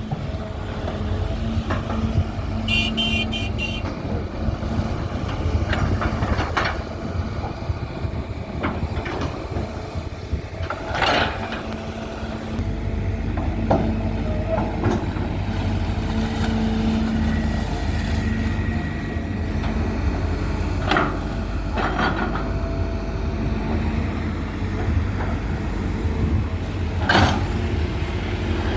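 Hydraulic excavator's diesel engine running steadily while it dredges, a low rumble with a steady hum that grows heavier about twelve seconds in. A few sharp clanks come through now and then.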